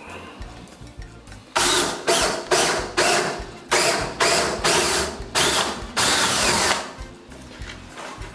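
DeWalt cordless drill boring up through the wooden bottom panel of a kitchen wall cabinet, run in about nine short trigger bursts with a slightly longer last run, starting between one and two seconds in.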